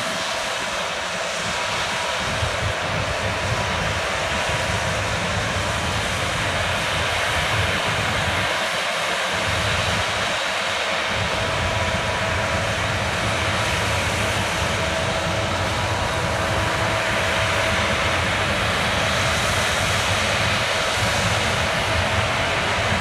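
Case combine harvester running steadily while harvesting barley: a constant engine drone with the noise of the threshing machinery and a steady high whine over it.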